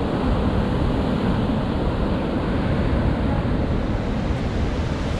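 Ocean surf breaking and washing over a rocky beach, a steady rush of noise, with wind buffeting the microphone.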